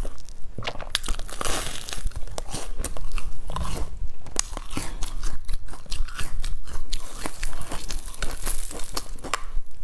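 Close-miked biting and chewing of a crusty, crumb-coated filled bun: many sharp irregular crunches and crackles from the crust, with wet chewing in between.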